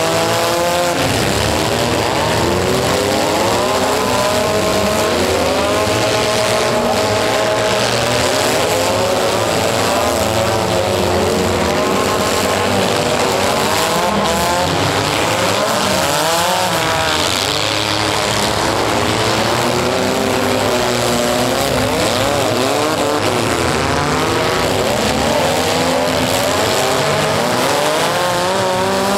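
Several economy compact demolition-derby cars' engines revving hard and dropping back, many overlapping and rising and falling in pitch without a break, as the cars spin their wheels and push against each other.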